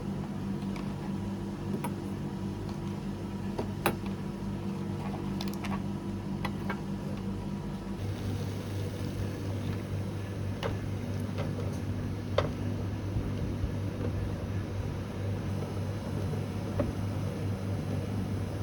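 Steady hum of kitchen machinery such as ventilation or refrigeration. Its low tones change about eight seconds in, and a few light clicks and taps of handling sound over it.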